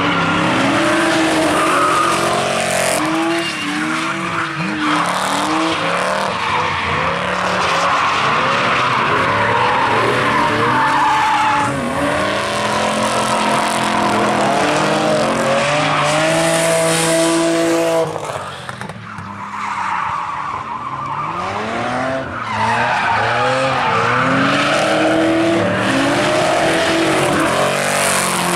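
Drift cars sliding around a track: engines revving hard in repeated rising and falling sweeps over continuous tyre squeal and skidding. It eases off for a couple of seconds about two-thirds of the way through, then picks up again.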